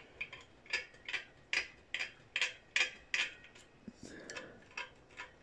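Steel scriber scratching the hole positions through a manifold's holes onto the blacked copper boiler, marking them out for drilling. Short, light scratches repeat about two to three times a second.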